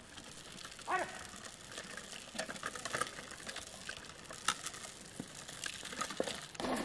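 Plastic wheels of a small child's tricycle rolling over a stony dirt path, giving an irregular crackling and clicking crunch. A child's short voice comes about a second in.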